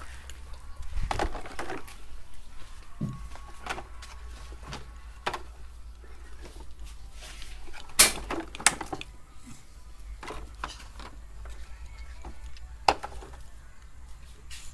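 Plastic toy trucks knocking and clattering as they are handled, a scatter of short knocks with a few sharper ones about eight seconds in and again near the end.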